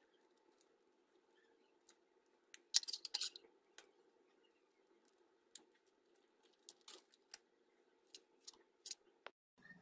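Thin plastic bag crinkling as it is folded and cut with a blade, with a cluster of sharp crackles about three seconds in and scattered single clicks after. A faint steady hum sits underneath.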